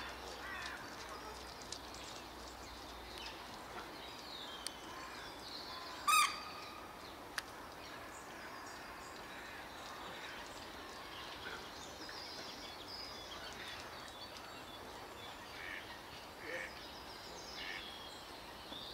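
Birds chirping and calling: many short, scattered small-bird chirps over a steady background hiss, with one loud, sharp call about six seconds in.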